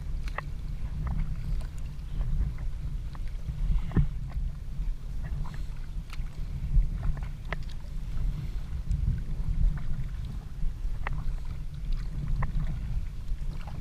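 Sea kayak being paddled: short, irregular splashes of water from the paddle and around the hull. Under them runs a steady low rumble of wind on the camera microphone.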